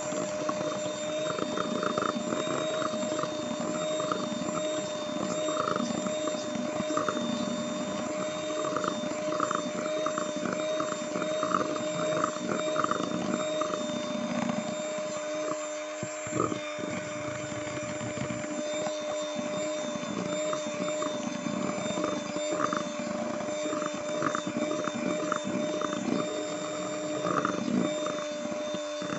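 Electric hand mixer running at its highest speed: a steady motor whine with the beaters churning through eggs and sugar in a metal bowl. The batter is being whipped until it is thick, pale and holds a trail.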